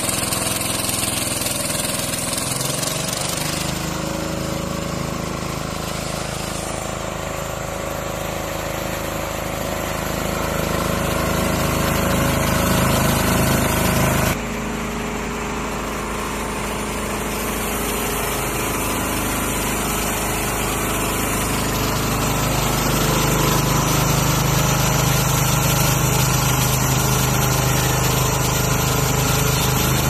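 Diesel engine of an MJ3707-800 portable horizontal band sawmill running steadily while the band blade cuts through a large log. The sound changes abruptly about halfway through, then grows slightly louder toward the end.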